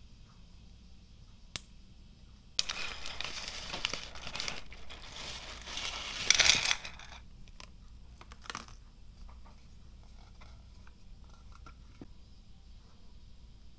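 Foil inner pouch of a Pretz pretzel-stick packet crinkling for about four seconds as the thin sticks are shaken out onto a wooden plate, loudest near the end. A single sharp snap of a stick comes just before it, and a few light clicks of the sticks being set down follow.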